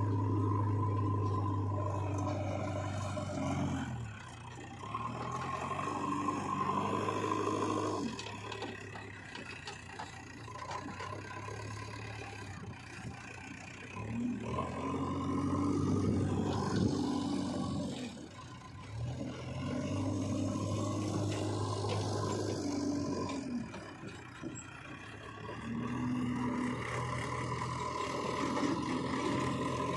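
Diesel engine of a JCB 3DX backhoe loader working under load. It rises to a loud, higher-pitched run and settles back again about five times, as the machine digs and loads.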